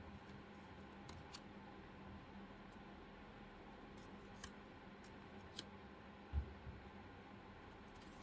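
Faint, sparse clicks of stiff oracle cards being flipped through by hand, with a soft low thump about six seconds in.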